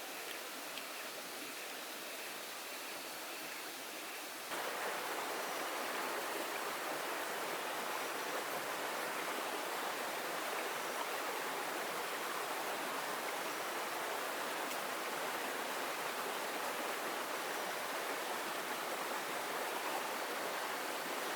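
Steady rushing of water, with no single drops or strokes standing out. It steps abruptly louder about four and a half seconds in, then holds steady.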